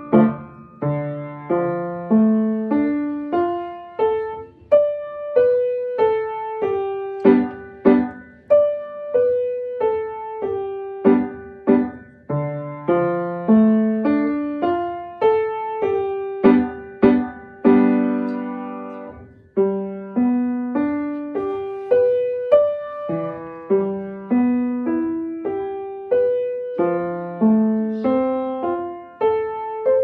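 Solo piano playing a flowing piece of broken-chord figures and melody at a moderate pace, note after note with each ringing on, and one chord held for over a second about 18 seconds in.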